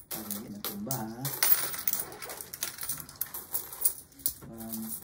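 Loose mixed coins clinking as they are picked from a pile and stacked by hand on a tabletop: many quick, sharp metallic clicks.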